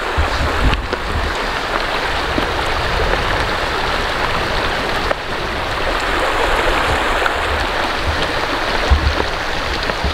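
Shallow river rushing steadily over stones, heard close from a log footbridge, with a few dull low thumps near the start and about nine seconds in.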